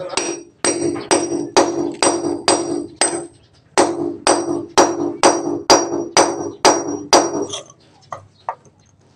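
Hammer striking a steel cold chisel held against cement, about two ringing metallic blows a second, in two runs with a short pause about three seconds in and a few faint taps near the end. The blows are kept light, chipping the cement away bit by bit.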